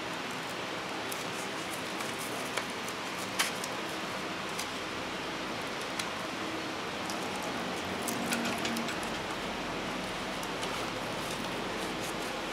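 A few light clicks and knocks from an Oxford OXFS-82 orbital sander being handled while sandpaper is clamped to its base under the wire paper clamp, over a steady hiss of background noise.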